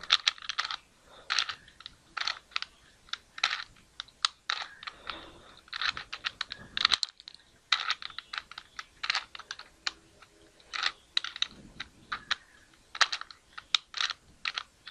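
Plastic 3x3 Rubik's cube being turned by hand, its layers clicking and clacking in rapid irregular bursts of several turns a second.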